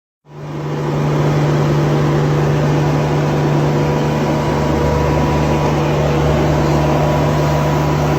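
An engine running steadily and loud, with a strong low hum and noise across the range, cutting in abruptly just after the start.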